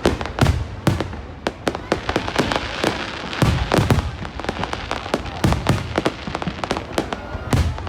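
Aerial firework shells bursting in a dense run of sharp bangs and crackles, with heavier booms every second or two.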